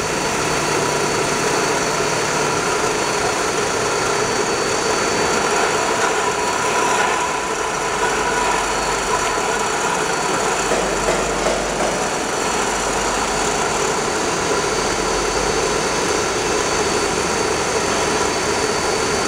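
Aluminium-can beer filling and seaming line with its can conveyors running: a steady machine hum with a thin high whine over it.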